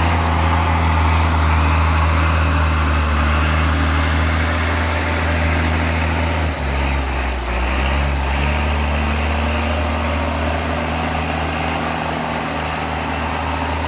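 County 1164 Turbo tractor's turbo diesel engine running steadily; about halfway the engine note dips and changes, then picks back up about two seconds later.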